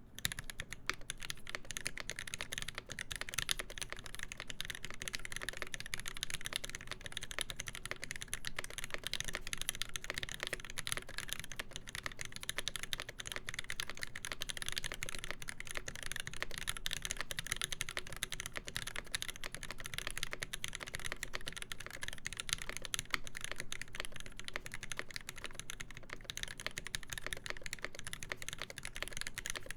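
Continuous fast typing on a mechanical keyboard with lubed Alpaca linear switches in a brass-plated KBD8X MKII, its GMK keycaps giving a steady run of rapid clacks. The typing starts right at the beginning.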